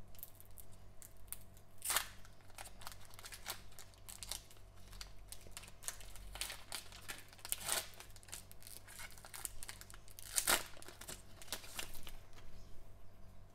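Foil trading-card pack wrappers crinkling and ripping as they are torn open by hand, with louder tears about 2, 8 and 10 seconds in. The crackling dies down near the end.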